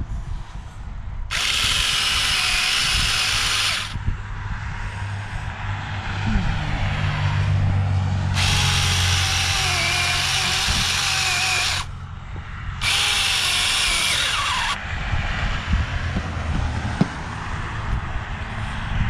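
Small chainsaw cutting into a pumpkin in three bursts: about a second in for a couple of seconds, again near the middle for about three seconds, and once more briefly a little later, with a whining note inside each cut. A steady low hum carries on between the cuts.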